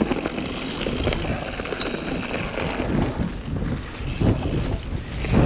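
Wind buffeting the microphone of a camera on a moving mountain bike, over the rumble of tyres on a dirt trail, with scattered clicks and rattles from the bike.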